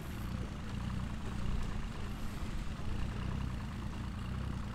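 A boat's engine idling, a steady low hum, with a constant hiss of wind and water over it.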